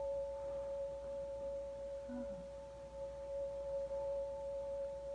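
A steady electronic tone, one pitch with a fainter higher one held together, unchanging throughout, with a brief faint low sound about two seconds in.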